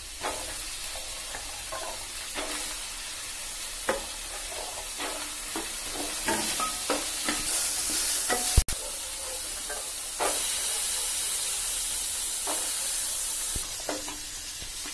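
Green beans, carrots, kidney beans and boiled peas sizzling in ghee and oil in an aluminium pot, stirred with a wooden spoon that knocks and scrapes against the pot. The sizzle swells twice, and there is one sharp click just past the middle.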